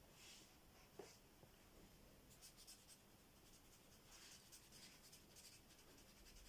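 Faint scratching of a felt-tip pen colouring in on paper, in short runs of strokes, with a light tap about a second in.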